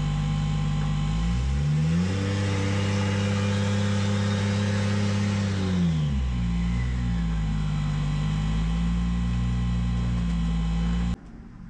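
Toyota 2JZ inline-six engine idling, revved up about a second in and held at higher revs for about four seconds, then dropping back to idle. A steady whine from the car's loud fuel pump runs underneath. The sound cuts off abruptly near the end.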